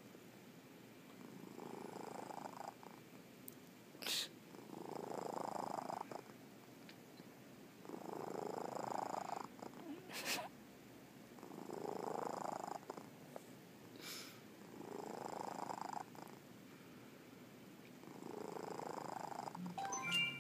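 A sleeping cat snoring: a slow, even series of breaths, about one every three to four seconds, each rising in pitch. The snore is close enough to a purr to be mistaken for one. A few short sharp clicks fall between the breaths.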